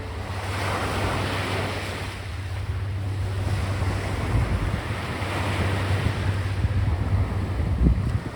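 Sea waves breaking and washing up a beach, swelling around a second in and again past five seconds. Wind rumbles on the microphone throughout and gusts hardest near the end.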